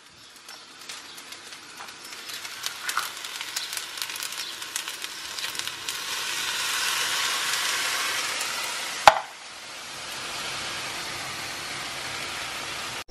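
Noodles and vegetables frying in a pan on a gas hob: a steady sizzle with many small crackles and spits that swells into a smoother, louder hiss. There is one sharp knock about nine seconds in, after which the sizzle is quieter.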